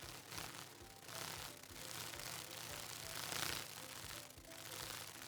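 Dragonfly wings whirring: a faint, crackly rustle that swells and fades several times, loudest a little past the middle.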